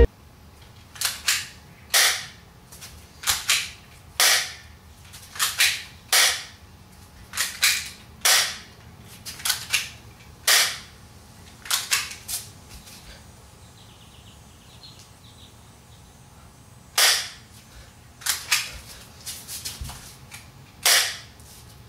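Simulated gunshot sound effects: about twenty sharp single shots, often two in quick succession, fired at irregular intervals with a pause of about four seconds past the middle. Each shot has a short echoing tail.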